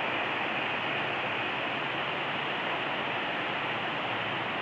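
Whitewater rapids of the Arkansas River rushing over rocks in a steady, even rush of noise.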